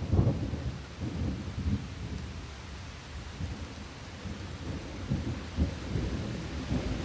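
Steady rain with thunder rumbling low underneath in uneven swells, strongest at the start and again about five seconds in.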